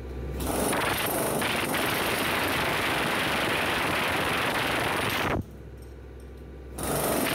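Pneumatic chipping hammer hammering rapidly on hardened concrete inside a steel transit mixer drum, breaking it off the drum wall. It starts about half a second in, stops suddenly after about five seconds, leaving a low hum, and starts again near the end.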